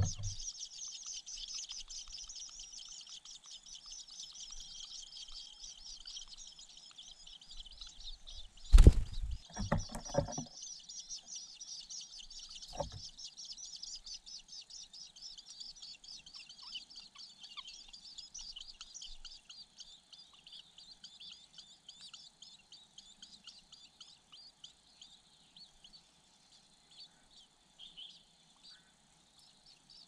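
Shrike nestlings begging with dense, rapid high chirps, thinning out to scattered calls in the later part. A loud burst of wing flapping comes about nine seconds in, with a shorter one a few seconds later.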